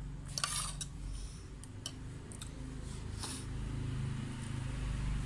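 Eating noodle soup with a spoon and fork: a few light clicks and short slurps, about half a second in and again near three seconds, over a steady low hum.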